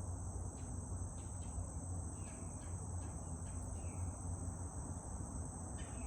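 Insects trilling steadily and high-pitched over the low, constant rumble of distant highway traffic. A few faint falling bird chirps and short ticks come through.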